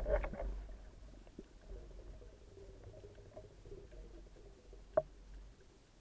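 Muffled underwater ambience picked up by a camera in its waterproof housing: a low steady rumble with faint scattered clicks. A louder rustle of movement in the first half second, and one sharp click about five seconds in.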